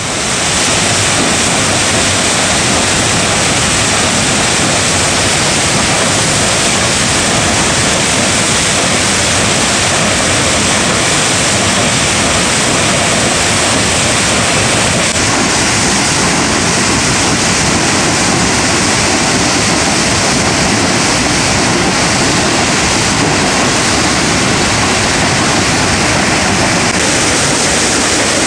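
Loud, steady rush of a rain-swollen waterfall and the white-water stream below it, water pouring and churning over rocks.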